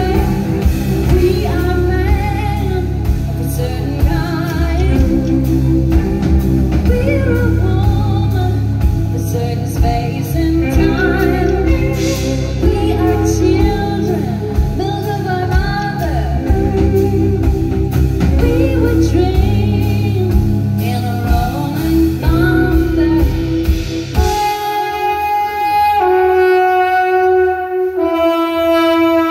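A band playing live: drums, bass and singing, with a wind instrument over them. About 24 seconds in, the drums and bass stop and the wind instrument plays on alone in long held notes.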